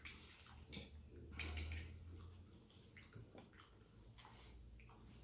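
Faint chewing and small scattered clicks over a low steady hum.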